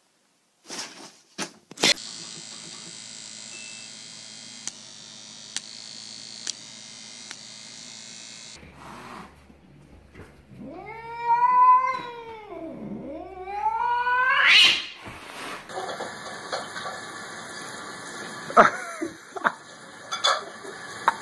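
A domestic cat's long, drawn-out yowl in two swells, its pitch sliding up and down and climbing to a high note at the end.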